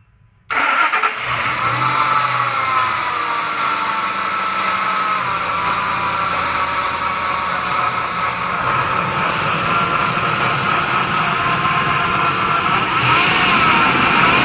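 Ford Expedition engine starting about half a second in and then running, its pitch wavering slightly.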